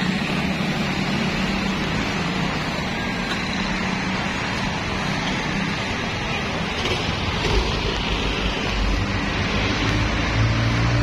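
Motorcycle engine running under way, with rushing wind over the microphone. The engine note holds steady at first, then drops lower with a deeper rumble in the second half.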